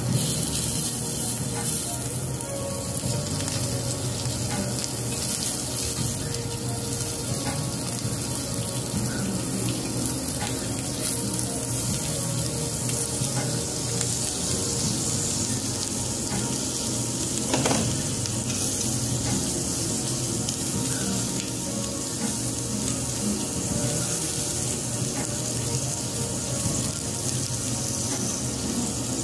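Lamb chops sizzling steadily on a domed Genghis Khan grill over charcoal, an even hiss of frying fat. One sharper click stands out a little past halfway.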